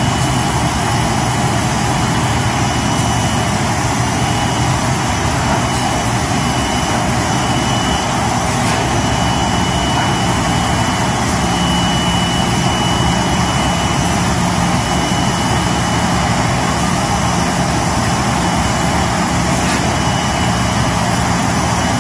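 MTM1080 metalized film laminating machine running: a steady loud mechanical noise with a low hum and a thin high whine over it.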